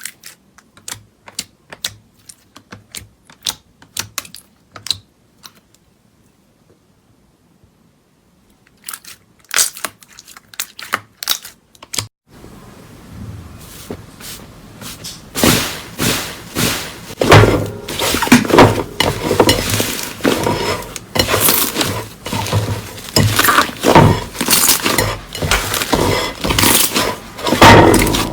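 Slime being squeezed and poked by hand: sparse sharp clicks and pops at first, then, from a little under halfway, a dense, louder run of crackling and crunching.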